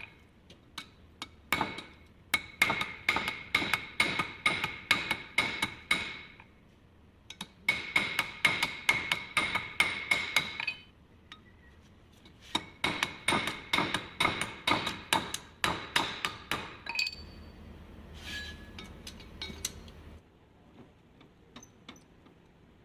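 Hammer striking steel in three runs of quick blows, about three a second, each blow ringing with a bright metallic tone. The hammering stops for the last few seconds, where only a few faint knocks are heard.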